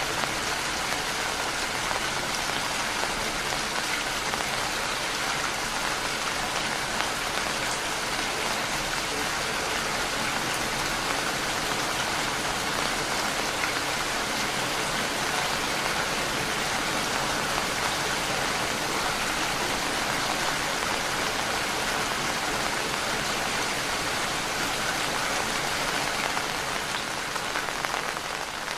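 Steady rain, an even hiss of many falling drops, fading slightly near the end.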